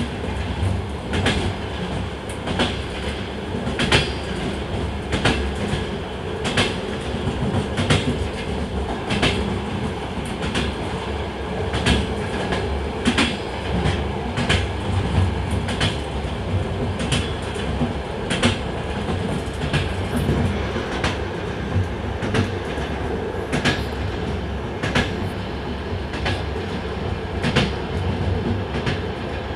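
Train running along the track: a steady rumble with regular clicks of the wheels passing over rail joints, about one every second and a bit.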